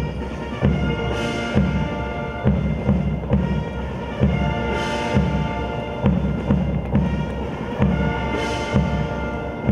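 Ceremonial band playing a march, with brass over a steady, regular drum beat, sounded as arrival honors while the dignitaries salute.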